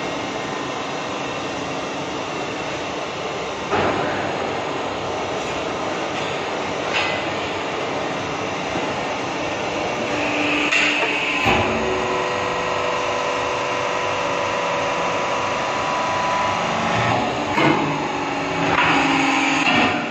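Hydraulic press power unit, electric motor and pump, running with a steady hum, with a few sharp metallic knocks. A brief high hiss about ten seconds in and again near the end.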